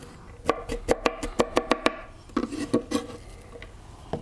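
Kitchen knife chopping garlic on a wooden cutting board, a fast run of sharp knocks at about six a second with a slight ring from the board. About two seconds in the chopping stops and gives way to a few duller knocks and light taps.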